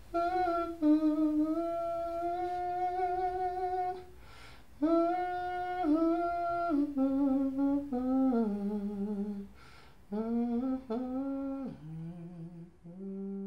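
A single voice humming a slow, wordless melody in three phrases of long held notes with short breaks between them, the tune stepping lower toward the end.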